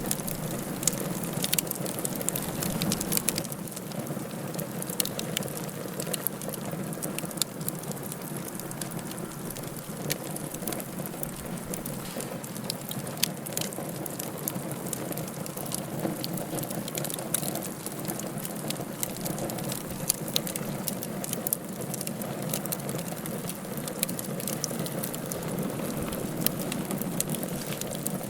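Wood fire burning in a fireplace: a steady low rushing with many irregular sharp crackles and pops.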